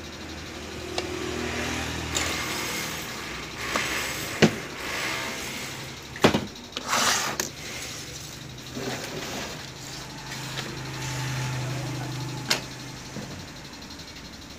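Workbench handling noises as a small circuit board and a mixer's metal chassis are picked up and moved: several sharp clicks and knocks, the loudest about six seconds in, and a brief rustling scrape soon after, over a low steady hum.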